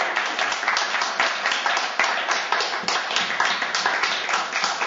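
Applause from a small group: many hands clapping in a dense, irregular patter that keeps up steadily.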